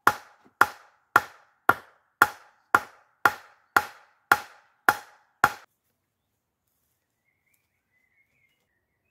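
Wooden club hammering the top of an upright log, knocking it into place in a log wall. It strikes eleven sharp wood-on-wood blows, about two a second, then stops about halfway through.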